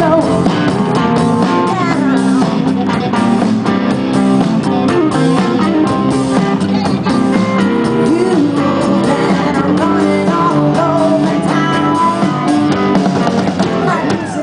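Live rock band playing: drum kit with cymbals, electric guitar and a singing voice, loud and steady throughout.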